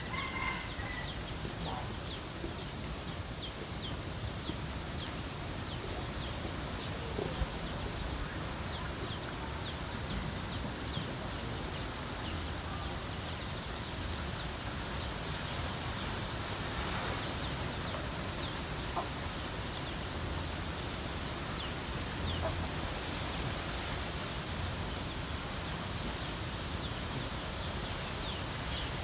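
Rural outdoor ambience: birds chirping in many short, quick high notes over a steady background hiss, with a few brief lower calls that fit chickens clucking.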